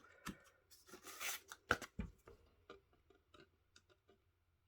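Soft rustles and short clicks of cardstock and scissors being handled, busiest about a second to two seconds in, then a few faint ticks.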